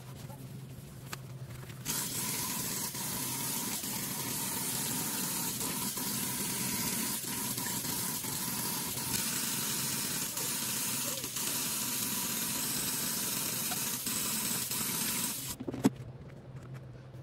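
Tap water running steadily into a stainless steel sink, starting about two seconds in and stopping near the end, followed by a single sharp click.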